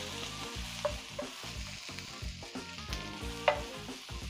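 Sliced vegetables sizzling steadily in hot oil in a pan while being stirred with a wooden spatula, which knocks and scrapes against the pan a few times, most sharply about three and a half seconds in.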